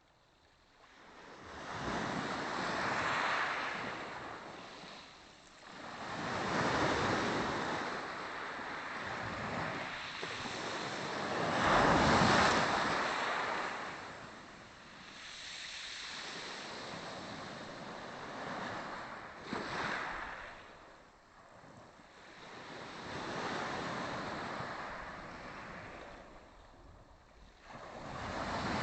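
Small Black Sea waves breaking and washing up on the shore, surging and falling back every four to five seconds, the loudest surge about twelve seconds in.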